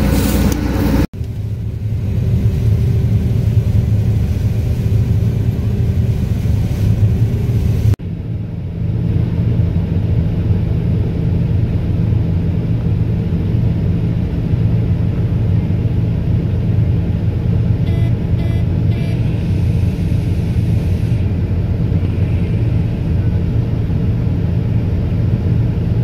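Combine harvester engine running with a steady low drone, heard from the cab while the unloading auger runs. The sound breaks off briefly about one second in and again about eight seconds in.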